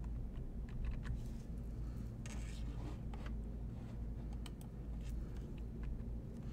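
Low steady hum of background room noise, with faint scattered clicks and light rustling from small handling noises near the microphone.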